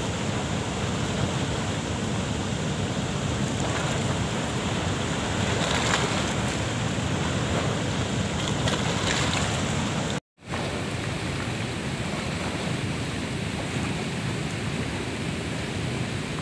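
Steady rushing roar of water pouring through a dam's sluice gates and churning over the rocks below. The sound breaks off for an instant about ten seconds in, then a similar steady rush of fast-flowing river water carries on.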